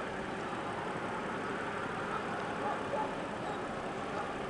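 Steady noise of vehicles idling at the roadside, with a few faint brief sounds over it.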